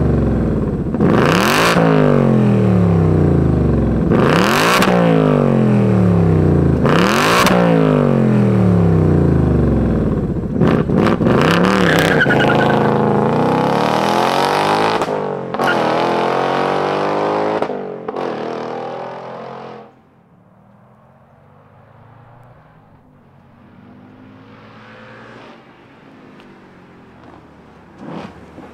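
2024 Ford Mustang Dark Horse's 5.0-litre Coyote V8 revved in quick blips, each rising and falling in pitch, about one every two to three seconds. It then goes into longer, slower revs with a few sharp pops among them. About two-thirds of the way through, the engine sound drops away to a faint low background.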